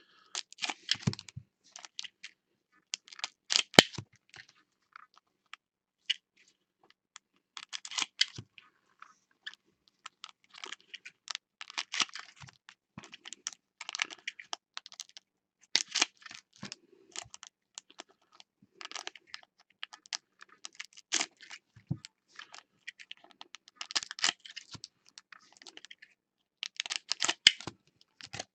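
Trading cards and their foil pack wrappers being handled on a tabletop: clusters of quick clicks and crinkles every second or two.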